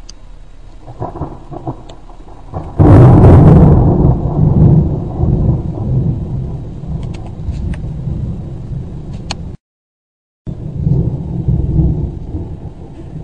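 A very loud thunderclap: a sudden sharp crack about three seconds in, after a few fainter crackles, then rolling thunder rumbling and slowly fading. Near the end the sound cuts out for about a second, and the rumble goes on afterwards.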